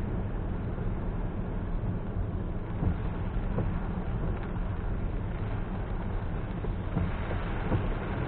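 A car driving through heavy rain: a steady low rumble of road and tyre noise mixed with the hiss of rain, with a few faint ticks.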